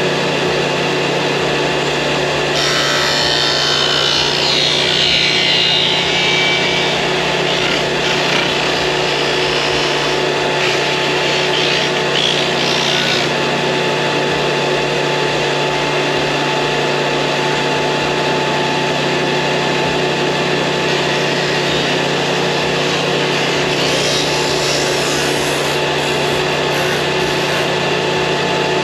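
Electric power tool motor running with a steady whine, with louder stretches as it works into wood, about three seconds in to thirteen seconds in and again near the end.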